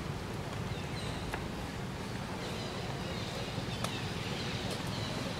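Outdoor ambience: a steady low rumble with several short, high chirps that slide down in pitch and a few sharp clicks.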